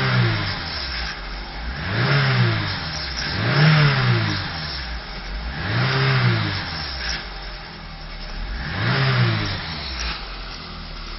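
2010 VAZ-21214 Lada Niva engine, heard from inside the cabin, revved in five short blips, each rising and falling in pitch. It carries an extraneous noise that new hydraulic engine mounts have not cured, which the owner suspects comes from the single-row timing chain.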